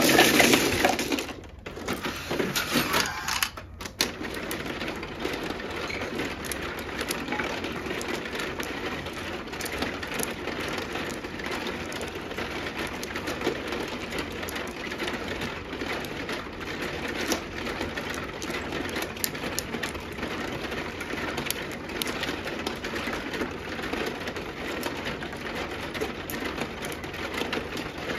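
Mahjong tiles clattering loudly as hands sweep them into an automatic mahjong table for about the first four seconds. Then a steady dense rattle as the table's mechanism shuffles the tiles inside, with small clicks of tiles being played on top.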